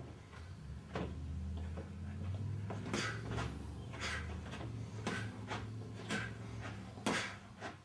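About eight sharp knocks and scuffs at irregular intervals from footwork on a padded gym mat as two boxers trade a jab and a snap-away evasion. A steady low hum runs under them.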